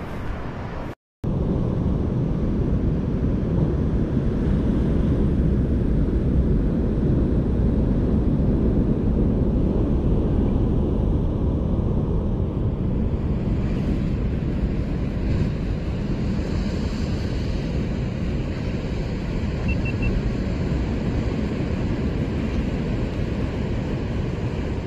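Steady wind noise buffeting the microphone over surf washing against the rocks below a sea cliff, with a brief silent gap about a second in.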